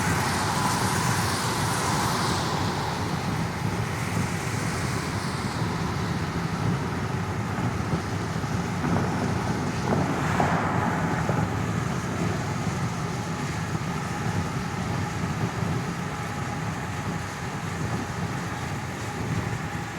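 Car cabin ambience: a steady low rumble of engine and road noise heard from inside a moving car. A high hiss fades out over the first few seconds, and a brief louder whoosh comes about ten seconds in.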